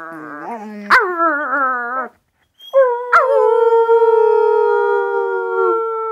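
Splurcher (springer spaniel × lurcher) puppy howling: a wavering howl that stops about two seconds in, then after a short pause one long, steady howl that sags slightly in pitch near the end.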